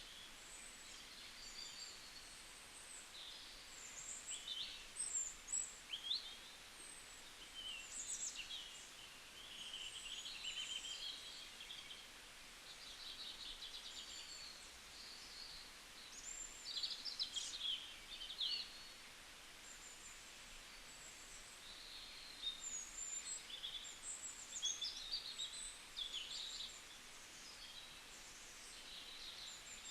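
Songbirds chirping and singing: short high chirps, trills and quick sliding notes in clusters every few seconds, over a faint steady hiss.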